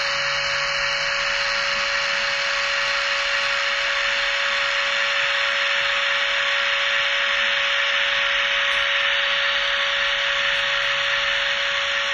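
Märklin Gold Crocodile model electric locomotive running on the track: a steady hiss with one constant pitched hum through it.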